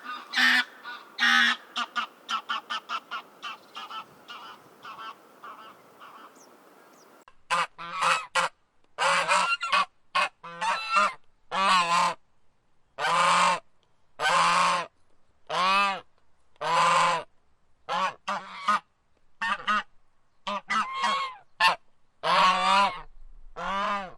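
Geese honking: a quick run of calls that fades away, then, about seven seconds in, a fresh run of loud, separate honks, roughly one a second.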